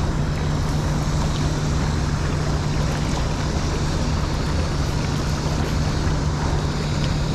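Steady rushing of fast river current, with a constant low hum running underneath.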